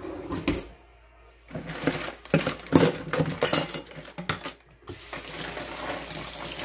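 Dishes and utensils clattering on a kitchen counter for a few seconds, then, about five seconds in, a kitchen tap is turned on and water runs steadily into the sink.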